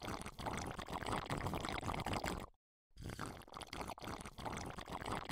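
Aquarium water bubbling and splashing, with a dense crackle of small bubbles and water movement. The sound cuts out completely for a moment about two and a half seconds in, then resumes.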